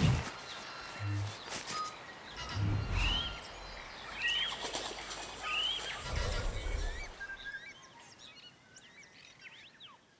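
Sound effects for an animated logo: bird-like chirps and three short rising whistles, mixed with soft low thuds and clicks. It fades away over the last couple of seconds.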